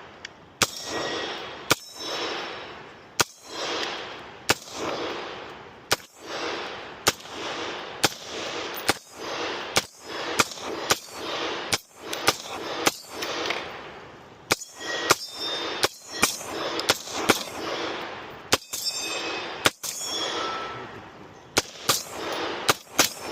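A long string of about two dozen .45 pistol-calibre shots from the Victor Kross, fired roughly one a second and coming faster near the end. Each shot is followed by an echo, and some are followed by a brief metallic ring.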